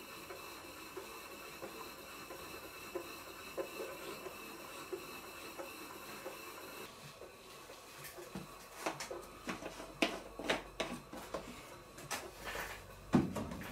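Small model steam engine running slowly: a faint steady steam hiss with soft, regular exhaust beats. About seven seconds in the hiss drops away, and a run of irregular clicks and knocks follows, the loudest one near the end.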